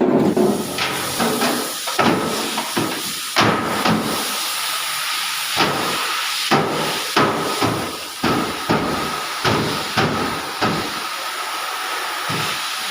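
Hammer striking the sheet-metal body panel of a Maruti Suzuki Baleno in dent repair: a string of irregular, sharp knocks, some a few per second and some a second or more apart, over a steady hiss.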